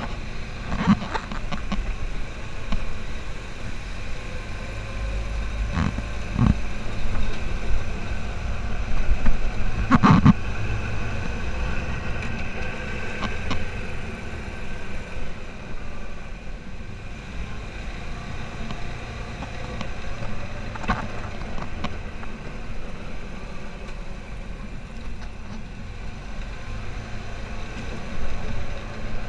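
Off-road buggy's engine running steadily as it drives over a rough dirt trail, with a few sharp knocks from bumps, the loudest about ten seconds in.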